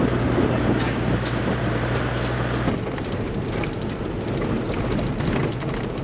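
Toyota 80 Series LandCruiser driving along a dirt track, heard from inside the cabin: a steady engine drone with tyre and road noise and scattered light knocks. The low engine hum changes abruptly a little under halfway through.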